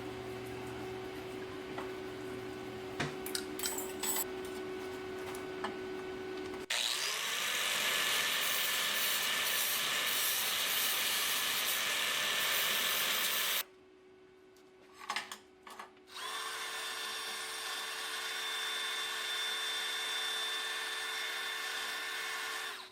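Electric angle grinder running on a welded steel tool, in several cut-together stretches. About seven seconds in, one starts up with a rising whine and grinds loudly. There is a short lull with a few clicks around 14 to 16 seconds before it runs steadily again.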